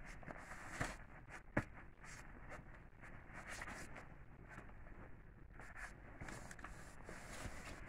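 A puppy scuffling and tugging at a rope toy on fabric bedding: soft rustling with scattered light clicks, and two sharper knocks early on.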